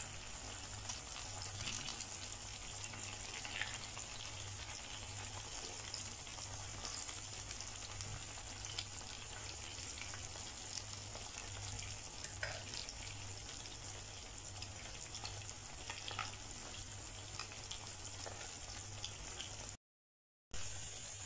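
Coated chicken pieces frying in hot oil in a pan: a steady sizzle with small scattered crackles. It cuts out briefly near the end.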